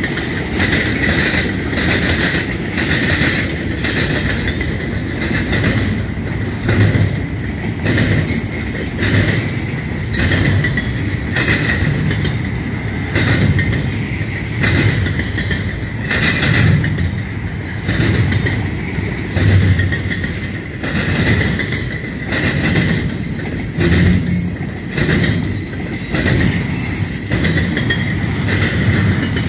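Freight cars rolling past close by, tank cars giving way to double-stack intermodal well cars. Their wheels click and thump over the rail joints under a steady high-pitched wheel squeal.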